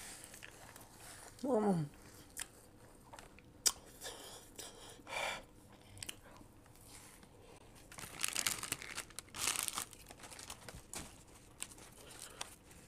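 Crunchy packaged snack chips being bitten and chewed, with the crinkle of foil chip packets, the crunching thickest in the second half. About a second and a half in, a short falling vocal sound, the loudest moment.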